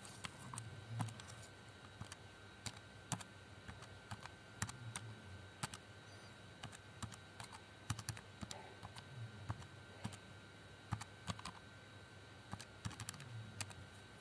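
Buttons of a Casio fx-991ES Plus scientific calculator being pressed: a string of light, irregular key clicks, sometimes several a second.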